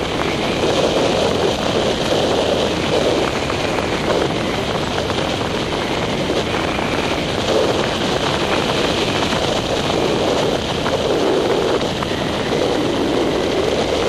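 Wind rushing steadily over the microphone of a paraglider pilot in fast gliding flight, swelling and easing every second or two.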